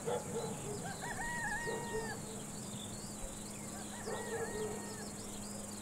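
A rooster crowing twice, each crow about a second long, over faint chirping of small birds.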